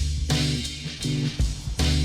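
Background music: plucked guitar and bass guitar over a steady beat.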